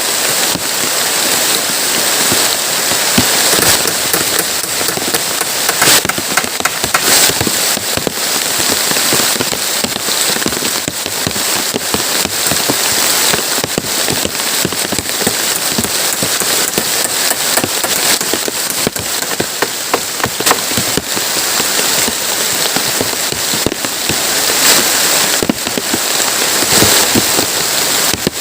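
Heavy rain falling steadily, with many sharp drop impacts.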